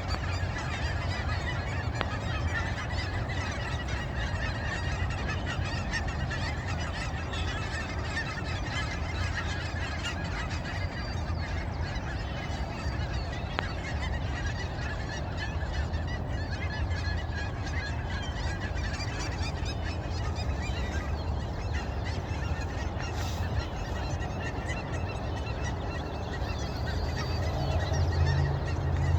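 A flock of Canada geese honking, many calls overlapping in a constant chorus, over a steady low rumble.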